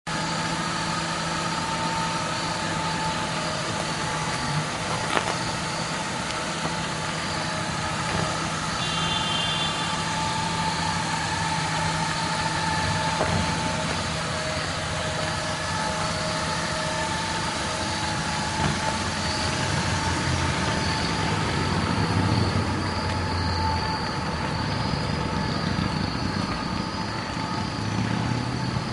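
Ford Crown Victoria Police Interceptor's 4.6-litre V8 idling steadily. A short high tone sounds briefly about nine seconds in.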